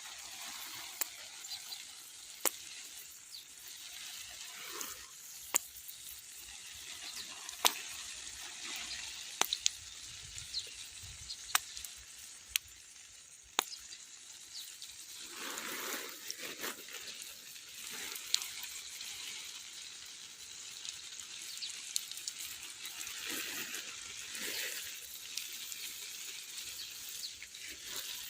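Water running and hissing while bean plants are watered, swelling in strength a couple of times, with scattered sharp clicks.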